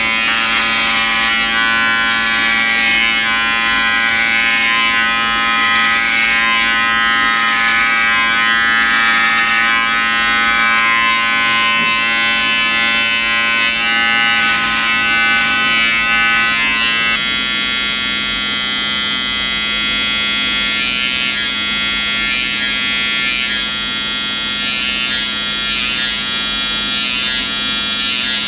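Electric hair clippers buzzing steadily as they cut short, tightly curled hair: first a Wahl Senior clipper, then a T-blade trimmer. The buzz changes abruptly about 17 seconds in.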